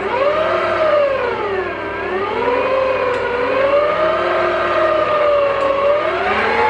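Electric stand mixer switched on and running, its flat beater mixing flour into cookie dough. The motor whine starts suddenly and slowly rises and falls in pitch.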